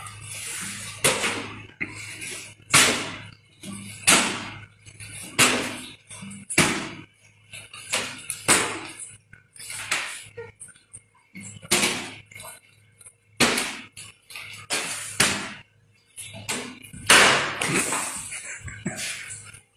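Plastic water bottles smacked down onto a concrete floor again and again, a sharp crack about once every second or so.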